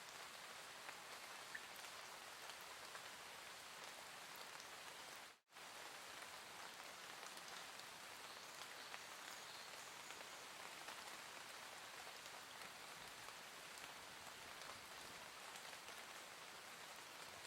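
Soft, steady rainfall: an even hiss with scattered faint drop ticks. It cuts out completely for an instant about five seconds in.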